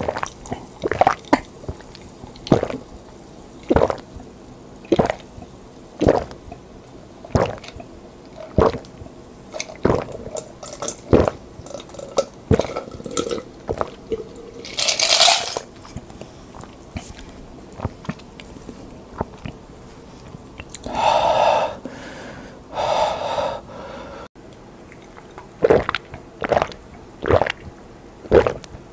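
Close-miked swallowing: loud gulps, about one a second, as a glass of cola is chugged without a pause. Midway the gulps stop for a loud breath out and two burps, then steady gulping of a second drink resumes near the end.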